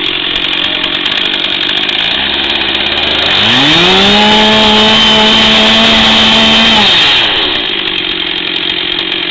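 Two-stroke chainsaw idling, then revved up to full speed about three and a half seconds in, held at high revs for about three seconds and let drop back to idle, as it is being adjusted.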